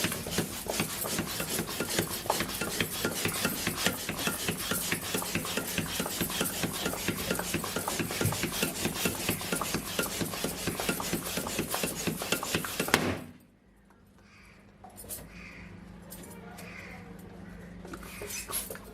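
A rubber balloon being rubbed and scratched: a dense, rapid rasping and squeaking. About two-thirds of the way through it ends in one sharp loud crack, after which only faint sounds remain.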